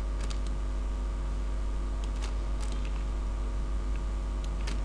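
Steady low electrical hum and hiss of the recording setup, with a few faint, brief computer mouse clicks scattered through.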